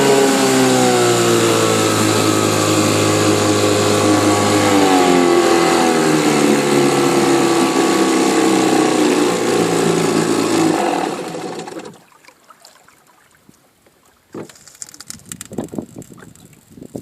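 1964 Johnson 3 hp two-stroke outboard motor running steadily, its pitch stepping down twice, then cutting out about eleven seconds in. A few light knocks follow.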